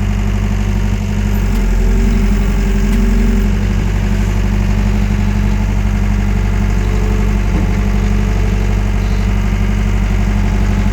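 Wacker Neuson 901S skid steer's diesel engine running steadily under load while its hydraulics carry a full 1,000-litre water tote in the bucket. The engine note swells briefly between about one and a half and three and a half seconds in.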